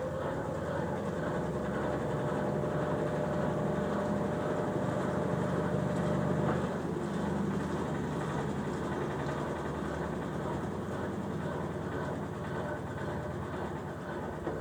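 Consul Facilite 9 kg washing machine running with a steady motor hum and churning. A thin whine over it stops with a click about six and a half seconds in.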